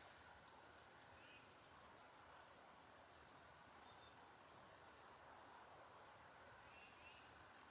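Near silence in the woods, broken by a few faint, short, high bird chirps, the clearest about two and four seconds in.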